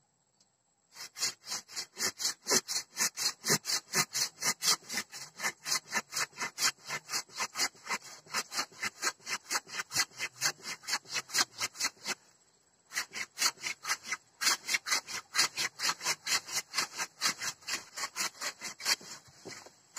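Curved hand pruning saw cutting through the woody root of an amplas tree in quick, even back-and-forth strokes, about three a second. The sawing pauses briefly about twelve seconds in, then resumes.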